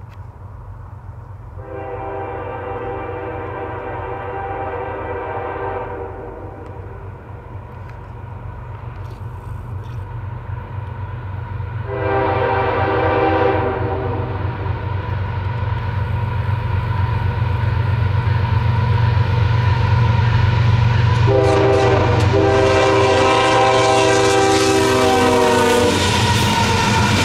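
Air horn on a Norfolk Southern GE ES44DC freight locomotive sounding for a grade crossing. It gives a long blast, a short one about ten seconds later, and another long blast near the end. Under the horn, the low rumble of the diesel locomotives grows louder as they approach and pass, with a rising rush of wheels on rail at the end.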